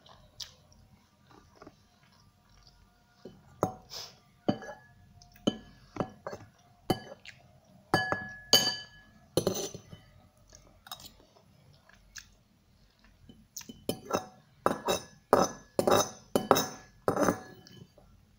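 Metal cutlery clinking and scraping against a ceramic bowl while scooping up pasta: a string of sharp clinks in bunches, quiet in the middle and busiest near the end.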